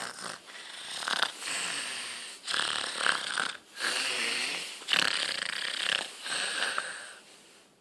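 A sleep-talking woman making a string of breathy, airy sounds instead of words: about six exhalations of around a second each, one near the middle carrying a faint voiced tone.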